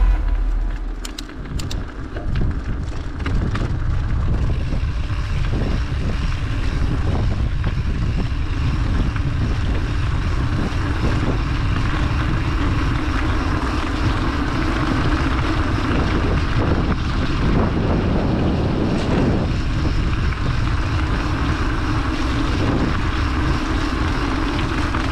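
Wind buffeting the microphone of a handlebar-mounted action camera on a moving mountain bike, a steady low rumble, mixed with tyres rolling on wet asphalt.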